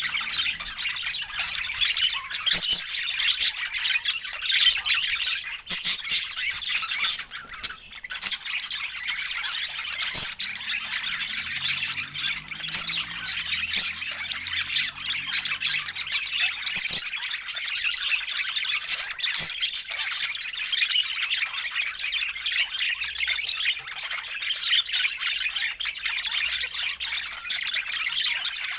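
Budgerigars chattering and squawking without a break, a dense high-pitched warble with many short sharp clicks mixed in.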